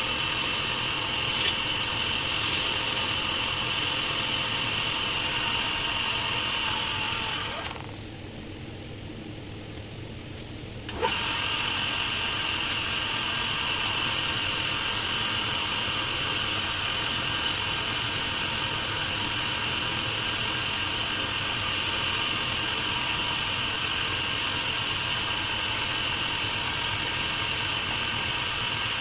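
Small wood lathe's motor running with a steady whine. About eight seconds in it drops away for roughly three seconds, then comes back with a couple of clicks.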